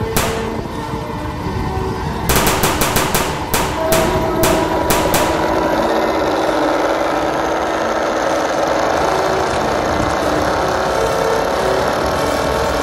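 Model armored troop carrier boat's sound effects: bursts of machine-gun fire starting about two seconds in, rapid at first and then spaced out, followed by a steady engine drone.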